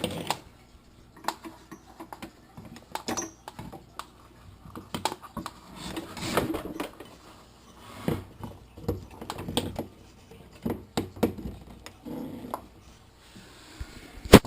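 Irregular clicks, knocks and rattles of cables and connectors being handled and plugged into the back of a desktop computer.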